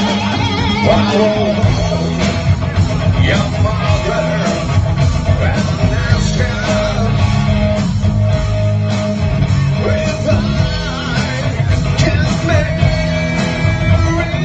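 A rock and roll band playing live: electric guitar over bass guitar and drums.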